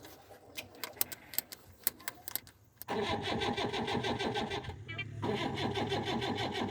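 Faint clicking, then about three seconds in a diesel engine starts up and runs loudly with a rapid, even firing beat, cutting out for a moment a little past the middle before running on.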